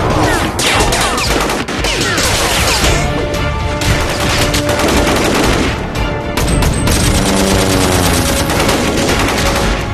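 Rapid bursts of machine-gun fire, used as action sound effects, mixed over a dense musical score.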